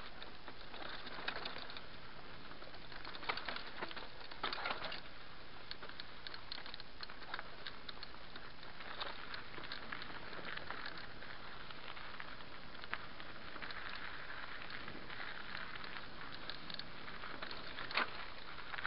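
Mountain bike riding fast down a rocky dirt trail: a steady rush of tyre and trail noise with scattered sharp knocks and rattles as the bike runs over stones, the loudest knock near the end.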